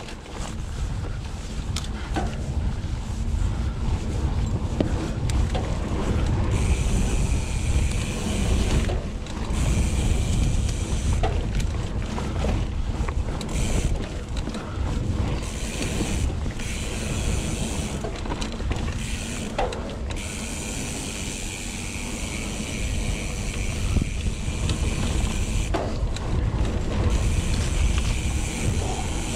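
Hope Pro 4 rear hub freewheeling with its loud ratcheting buzz in stretches as a mountain bike rolls down singletrack, the buzz stopping each time the rider pedals. Underneath runs a steady rumble of tyres and wind on the microphone.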